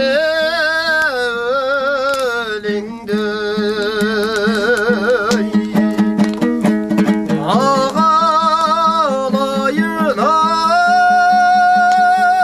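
Kazakh folk song sung solo with a wavering vibrato over a strummed dombra, the two-stringed Kazakh lute. The voice ends on a long held note in the last couple of seconds.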